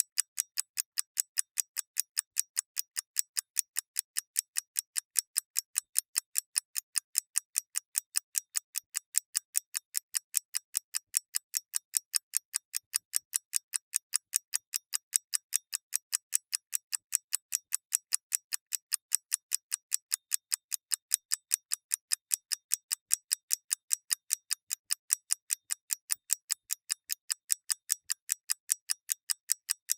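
Mechanical clockwork ticking: fast, even, crisp ticks, several a second, steady in level and pace.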